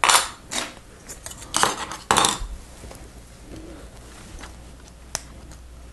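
Plastic Lego Technic pieces clattering and clicking as they are picked out of the loose parts on the table. A few rattling bursts come in the first two and a half seconds, then only a couple of single clicks.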